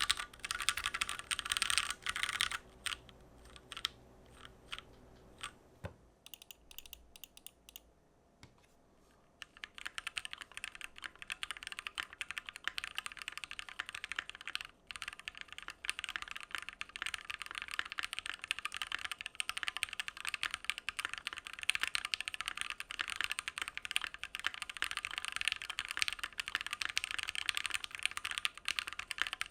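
Typing on a Keychron Q1, a gasket-mounted aluminium-plate mechanical keyboard. A quick run of keystrokes is followed by a few scattered presses, then a pause of a few seconds about six seconds in. After that comes a long stretch of fast, continuous typing.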